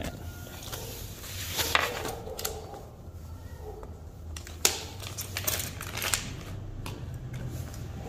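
Scattered small plastic clicks and taps of a mechanical keyboard switch being handled and set down on a wooden desk; the sharpest click comes a little past halfway.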